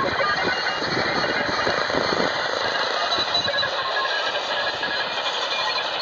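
Shortwave static hissing steadily from the speaker of a Knup KCF-F21 multiband portable radio tuned to the 20-metre amateur band, with short keyed tones of Morse code signals scattered through the noise.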